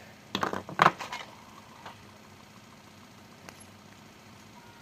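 A small, nearly empty glue tube being squeezed hard, with air and glue sputtering out of the nozzle in two short, rough bursts about half a second apart.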